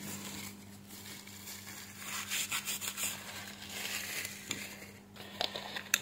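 Crinkly rubbing of a wad of tissue wiped back and forth over a remote control's circuit board, cleaning the tracks before soldering, with a few light clicks near the end.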